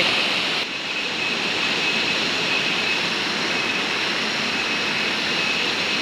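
Steady rush of falling water from a tiered waterfall and its stream. The sound turns slightly duller all at once about half a second in.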